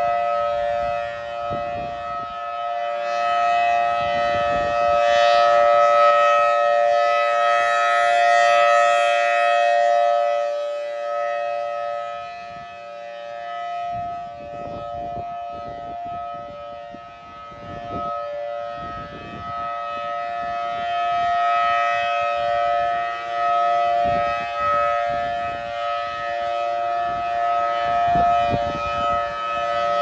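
Federal Signal Thunderbolt 1000T outdoor warning siren sounding a steady chord-like tone on its monthly test. Its pitch holds while its loudness slowly swells and fades as the rotating horn sweeps toward and away from the listener.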